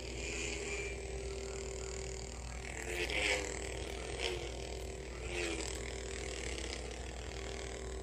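Darth Vader Force FX Black Series lightsaber's sound effects from its built-in speaker: the steady electronic hum of the lit blade, swelling three times midway into wavering swing sounds as the saber is moved.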